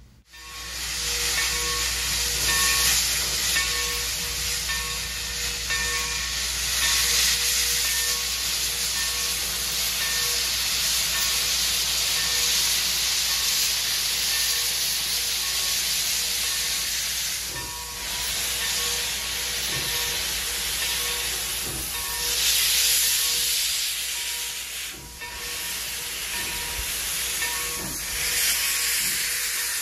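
Steam locomotive blowing steam from its open cylinder drain cocks: a loud, steady hiss that swells and eases every few seconds.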